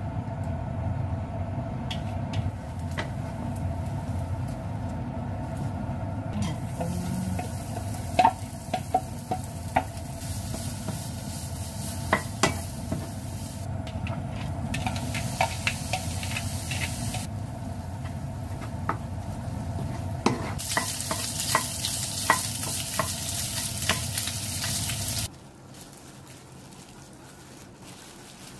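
Food frying in a pan for gimbap fillings: beaten egg and then shredded vegetables sizzling in hot oil, with the sizzle swelling and easing several times and utensils clicking and tapping against the pan. Near the end the frying stops and only a quiet room sound remains.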